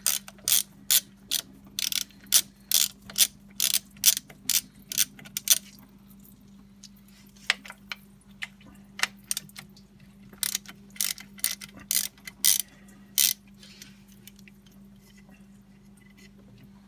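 A 3/8-inch ratchet with a 10 mm socket clicking in quick, even strokes, about two to three a second, as it backs out the thermostat housing bolts. It goes in two runs, the second starting after a short pause past the middle.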